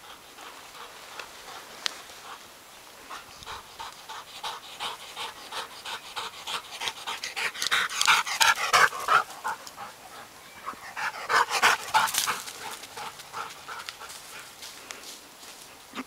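Springer spaniel panting hard from running, with quick, rasping breaths. The panting grows loudest about halfway through and again a few seconds later.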